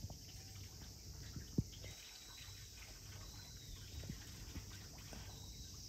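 Faint summer outdoor ambience: a steady high-pitched drone of insects, with one short soft knock about one and a half seconds in.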